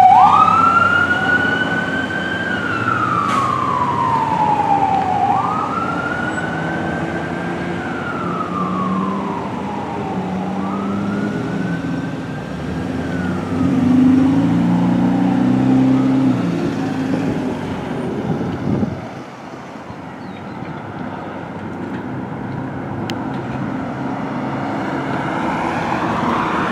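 Fire apparatus siren wailing in slow up-and-down sweeps while the fire engine and rescue unit drive off on a call, growing fainter and dying away about two-thirds of the way through. Under it runs the low rumble of a heavy truck's engine, which swells as it pulls away, and then steady road traffic.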